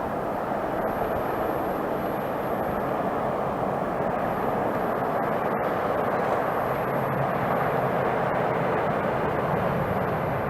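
Jet airliner engine noise: a steady, broad rushing sound that builds slightly at the start and then holds level.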